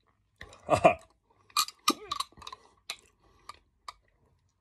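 A brief throat sound, then a metal spoon clinking and scraping against a glass jar of chilli pickle: a string of sharp clicks as it scoops another spoonful.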